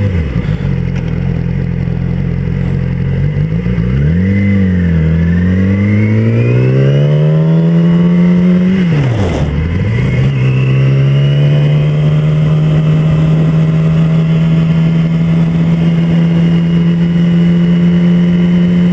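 2007 Yamaha YZF-R6's inline-four engine accelerating, rising in pitch for several seconds, dropping sharply at a gear change about nine seconds in, then holding a steady pitch as the bike cruises.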